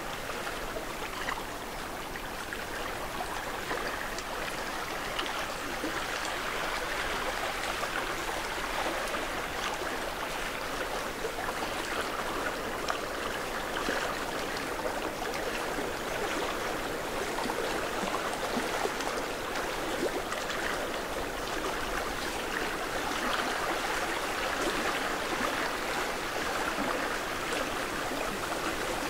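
Small waves lapping against a rocky lakeshore, a steady watery wash.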